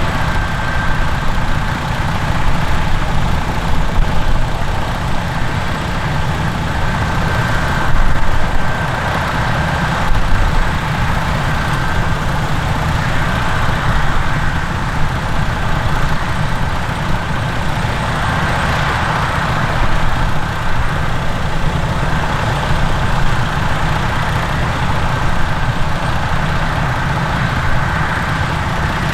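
Heavy diesel harvest machinery running steadily: a deep engine rumble with a steady high whine over it, swelling briefly a few times.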